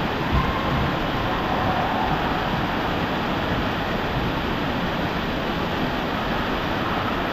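Water rushing steadily down a water slide, an even noise with no breaks.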